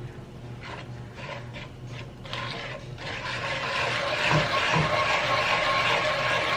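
Mongolian beef sauce in a stovetop pan starting to sizzle and bubble, with scraping and stirring; the hiss swells from about two seconds in and stays loud.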